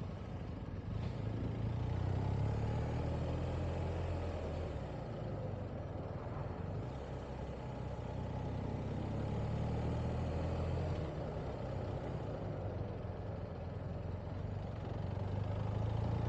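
BMW R 1250 GS Adventure's boxer-twin engine running under way, its low note swelling and easing several times as the throttle opens and closes.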